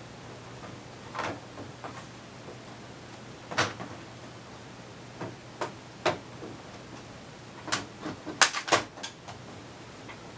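Plastic back cover of a Lenovo C440 all-in-one PC being pressed onto the chassis, its big plastic clips crunching and snapping into their catches. Scattered sharp clicks come first, then a quick, louder cluster of snaps near the end. The noise sounds a bit ominous but is normal for this cover.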